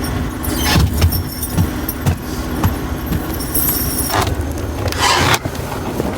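Strong wind rumbling and buffeting on the microphone in a snowstorm, with a few soft thumps about every half second early on and louder gusts near the end.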